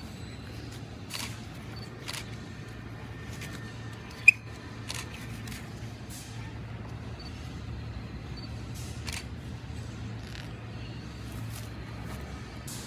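Scotch eyed wood auger bit hand-turned into a rotten log: scattered faint crackles and creaks as the cutters bite the wood, with one sharp click about four seconds in. A steady low hum runs underneath.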